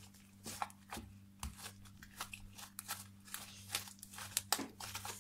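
Hands kneading modelling clay into a white shaving-foam and glue slime: irregular small crackles and squelches, over a faint steady low hum.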